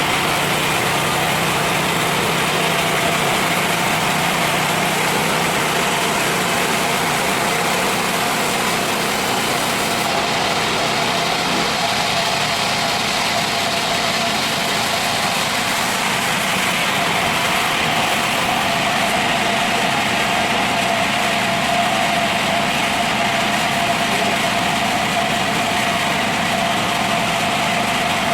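Horizontal band sawmill running steadily, with a constant whine over a broad mechanical noise.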